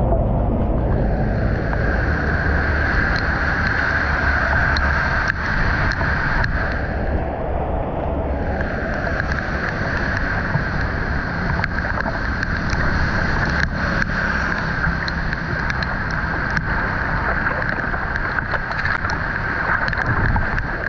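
Muddy floodwater rushing and churning into a partly cleared curbside storm drain. Low wind rumble on the microphone runs under it.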